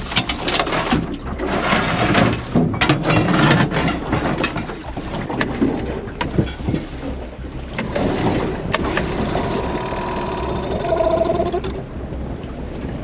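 Gear being rummaged and knocked about inside an aluminium dinghy: ropes, bags and life jackets are shifted with clattering knocks, along with wind on the microphone. A short whining tone comes in about eight seconds in and fades near the end.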